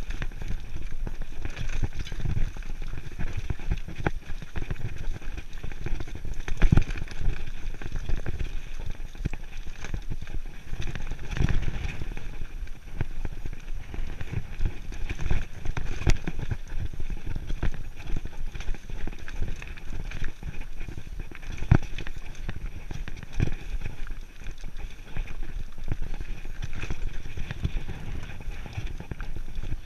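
Mountain bike riding over a rocky dirt trail: a steady crunch of tyres on gravel with frequent knocks and rattles as the bike bounces over stones, over a low rumble.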